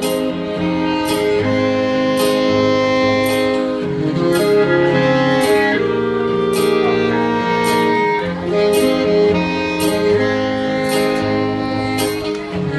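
A live band plays an instrumental passage of a song: long held notes over a steady beat, with a light percussive stroke about every 0.7 s.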